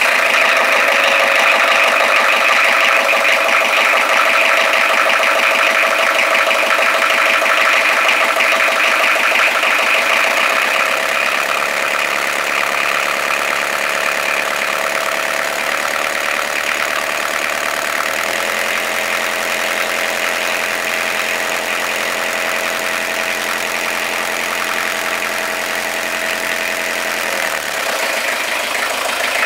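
Beta Marine inboard diesel engine in a narrowboat's engine bay running steadily at low speed, heard close up. Its note shifts to a new pitch a few times.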